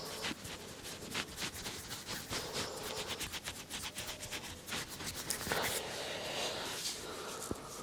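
Hands rubbing and scratching quickly through hair and scalp during a head massage, a continuous run of fast scratchy strokes and small clicks.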